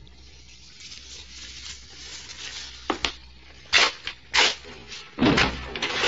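Faint room noise, then a few sharp knocks, and a heavier thud near the end.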